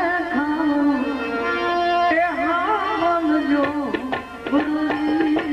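Gujarati devotional satvani music: a melodic line over tabla, with a dense run of tabla strokes from about three and a half seconds in.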